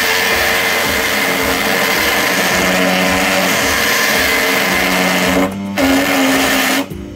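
Mini benchtop wood lathe running, its small motor whining steadily while sandpaper is held against the spinning wooden dowel. The noise dips briefly about five and a half seconds in and falls away just before the end.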